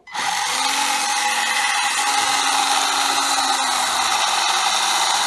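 Electric motor and drivetrain of a UDI 1601 Breaker 1/16 RC drift truck whirring at steady throttle, its wheels spinning freely off the ground. It starts suddenly and holds at one even pitch.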